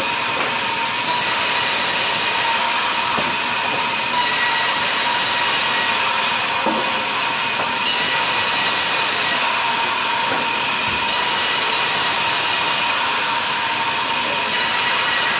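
Log band saw running steadily and cutting through a log as it is fed along the table: a steady hiss with a thin whine over it.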